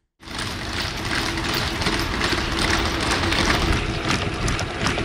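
A team of Boston Dynamics Spot robot dogs towing a box truck: a steady mechanical running noise with a constant hum, scattered with many quick small clicks and taps. It starts abruptly just after the cut.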